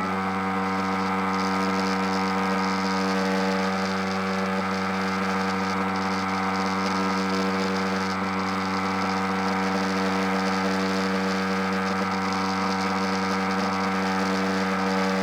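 RC model airplane motor running at a steady, high pitch, with an even droning hum.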